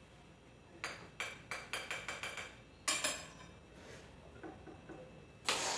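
Knife tapping against an egg's shell to crack it over a mixing bowl: a quick run of light taps, about four or five a second, then a sharper tap about three seconds in. A louder, longer noise comes near the end.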